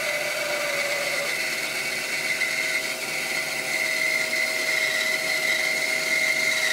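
Rikon 10-305 benchtop bandsaw with a 4 TPI blade running and cutting through a thick block of laminated wood, a steady whine over the noise of the cut.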